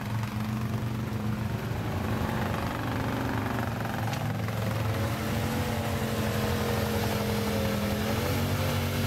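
ATV engine running steadily as a green Arctic Cat quad crawls down into a muddy creek. About four seconds in, a quad engine revs up and is held at high revs, its wheels spinning in deep mud where it is stuck.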